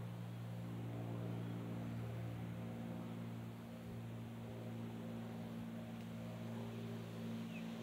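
A steady low hum made of several held tones, with a brief faint chirp near the end.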